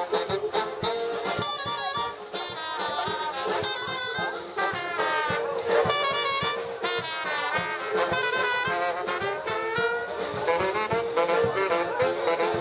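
German-style brass band playing a lively tune with a steady beat, the horns carrying the melody.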